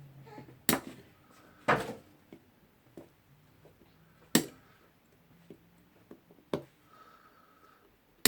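Sharp metallic clicks and snaps of pliers working at a retaining ring that holds the rotor in an Ingersoll Rand pneumatic impact wrench. The ring is stubborn and the pliers keep slipping: four loud clicks a second or two apart, with several lighter ticks between them.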